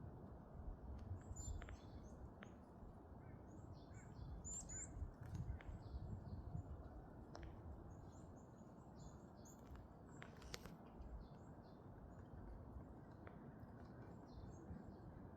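Varied tit giving a string of faint, short, high-pitched chirps, thickest in the first half and sparser later, over a steady low background rumble.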